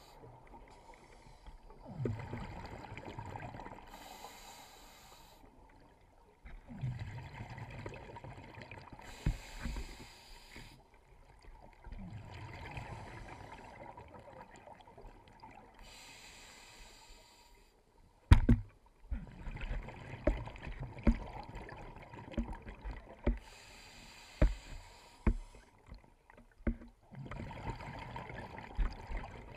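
Scuba diver breathing through a regulator underwater: each exhale is a low rush of bubbles, each inhale a high hiss, in a slow cycle every few seconds. A sharp loud knock comes a little past the middle, followed by scattered clicks and taps.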